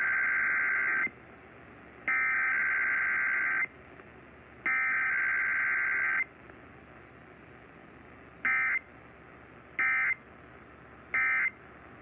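Emergency Alert System SAME digital header played over AM radio: three long, harsh data-tone bursts about a second apart, then three short bursts. The sound comes out of a small tabletop radio speaker.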